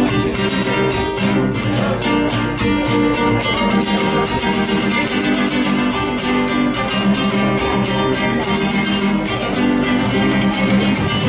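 Instrumental passage of Argentine folk music, led by acoustic guitars strummed in a steady rhythm.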